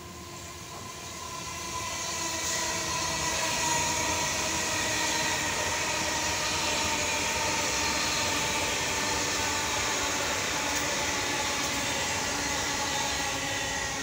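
KCIC400AF high-speed electric train running past at speed: a rushing noise with a steady high whine that swells over the first two seconds, holds while the carriages go by, and starts to fade at the end.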